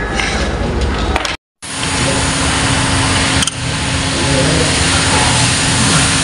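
Steady running-machine noise with a constant low hum. It cuts out completely for a moment about a second and a half in, then resumes.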